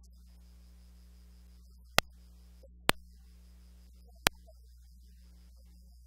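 Steady low electrical hum from a sound system, broken by three sharp clicks about two, three and four seconds in.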